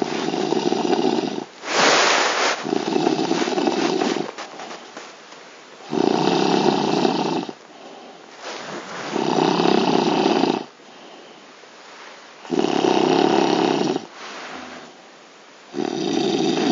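A man snoring in his sleep at a very loud volume: a long, rasping snore about every three seconds, with quieter breathing between the snores.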